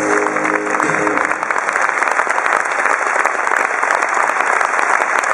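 Held guitar notes stop about a second in, followed by steady applause, dense hand clapping.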